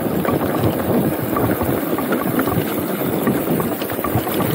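Sunpeed Spark mountain bike riding fast over a rough dirt and gravel track: a steady rumble of tyres over stones, dotted with many small clicks and rattles from the bike, with wind on the chest-mounted camera's microphone.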